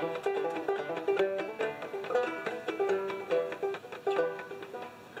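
Instrumental music of quickly plucked strings in a bluegrass-like style, a fast run of short ringing notes.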